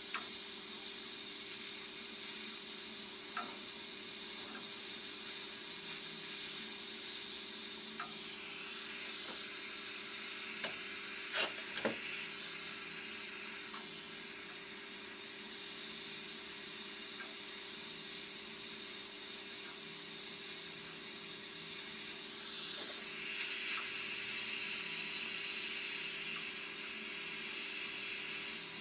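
Soldering gas torch burning with a steady hiss, growing louder about halfway through, over a low steady hum; a few light clicks and one sharp knock near the middle.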